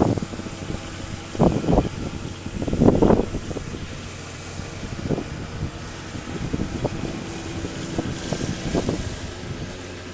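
Riding lawn mower engine running steadily at a distance as it drives across the lawn. Several loud, low rumbling bursts come in the first three seconds.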